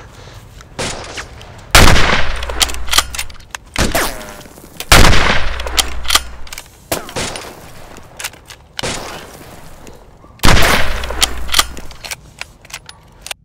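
Bolt-action rifle gunfire: three loud shots, each followed by a low rumbling tail, with fainter shots and sharp metallic clicks in between.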